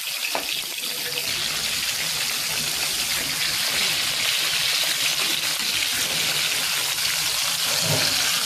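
Shallow oil sizzling steadily around banana-leaf-wrapped chicken parcels frying in a pan.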